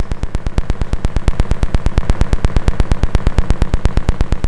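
Audio signal from a colour-changing disco LED's built-in controller chip, patched into a mixer and played through speakers: a fast, even train of electronic clicks, about ten a second, each with a low buzz.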